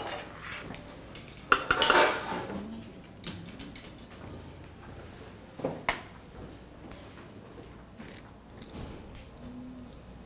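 Ceramic plates and utensils clinking and knocking on a steel counter during plating, with the loudest clatter about two seconds in and another sharp clink near six seconds.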